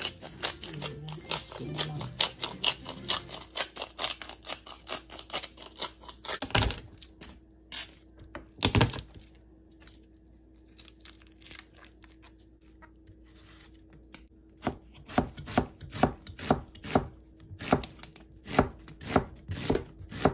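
Kitchen knife chopping on a plastic cutting board: a fast run of chops at first, two heavy knocks near the middle, then steady slicing strokes about two a second over the last several seconds.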